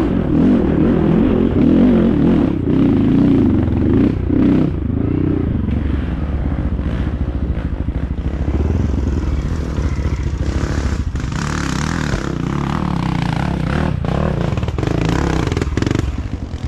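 Dirt bike engine revving hard, its pitch rising and falling with the throttle over the first few seconds, then running on more steadily. Scattered knocks and clattering, typical of the bike working over rough ground.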